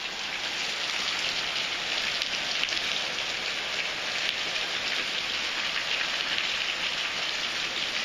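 Heavy downpour, a real gully washer: hard rain falling on trees and ground in a steady, dense hiss.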